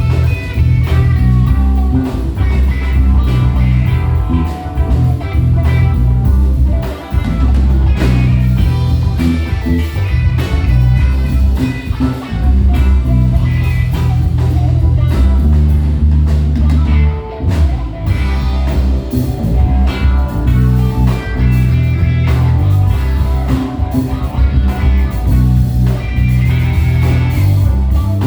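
Live band playing a bluesy number, with guitar over a heavy bass line and drum kit.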